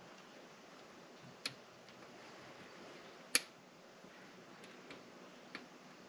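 A few sharp clicks and taps from handling an RC crawler's roll cage and its small parts during assembly. The loudest comes a little past halfway, with fainter ones before and after, over faint room hiss.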